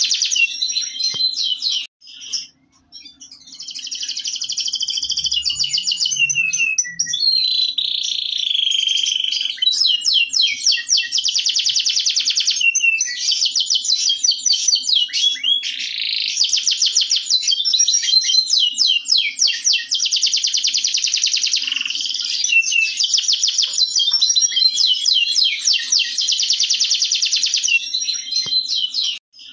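Caged domestic canary singing a long, near-continuous song of rapid trills and rolls, with a brief pause about two seconds in.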